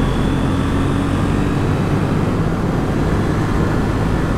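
KTM 790 Duke's parallel-twin engine running steadily as the bike is ridden along the road.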